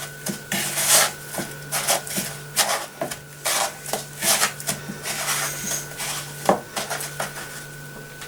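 Irregular rubbing and scraping strokes, one or two a second, from hands shaping and flattening breadcrumbed chicken burger patties, over a steady low hum.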